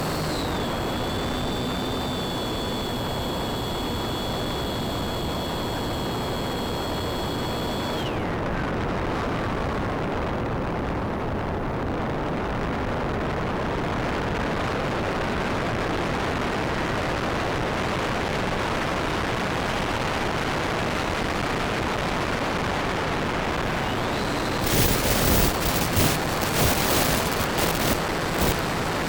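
Electric motor of a Bixler RC plane whining at a steady high pitch, then throttled back with a falling whine about eight seconds in, leaving a steady rush of air noise while it glides. The whine comes back near the end, with a run of loud crackling bursts.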